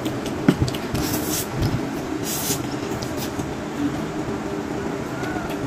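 Plastic squeeze bottle of sauce sputtering in two short hissy squirts as sauce is squeezed out onto skewered fried fish balls, after a sharp click about half a second in, over a steady background hum.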